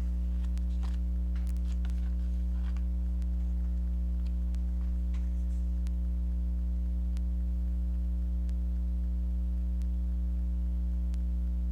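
Steady electrical mains hum, with a few faint small clicks scattered through it.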